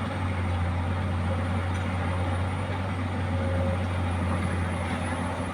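Heavy diesel engine running at a steady speed, a constant low drone with no change in pitch.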